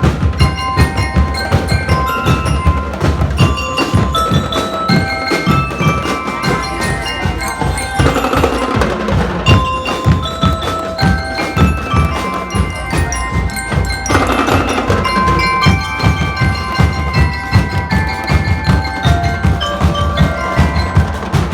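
High school drum and lyre band playing: bell lyres ring out a melody of short, bright notes over a steady, dense beat of marching drums, with two brief washes of noise about eight and fourteen seconds in.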